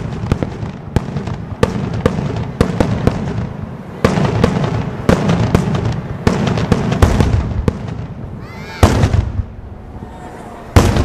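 Daytime fireworks: aerial shells bursting in rapid succession, a dense run of sharp bangs and crackles with a rumbling echo. After about eight seconds it thins to a few single, louder bangs, the loudest near the end.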